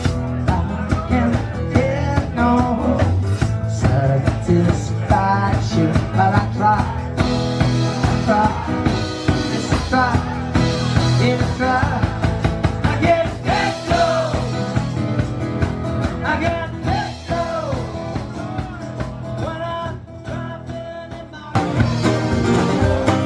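Live acoustic rock band playing: two strummed acoustic guitars and a drum kit, with a man singing lead. Near the end the music dips, then cuts abruptly to a louder passage.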